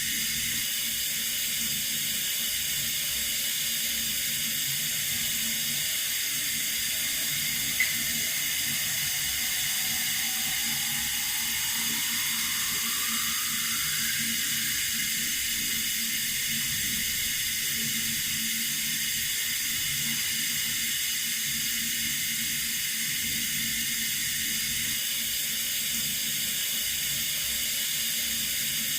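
Running water: a steady, even hiss, with a single brief click about eight seconds in.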